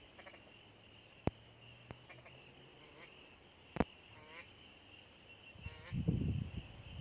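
Faint waterfowl calling in short repeated series, over a steady high insect-like hiss. Two sharp clicks, the loudest sounds, come about a second in and near the middle, and a low rumble comes near the end.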